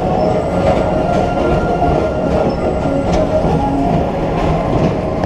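Tomorrowland Transit Authority PeopleMover cars running along their elevated track: a steady rolling rumble and clatter.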